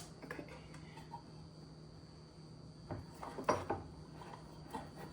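A few light clicks and knocks from handling a can of chickpeas, loudest about three and a half seconds in, over a steady high-pitched whine and a low hum.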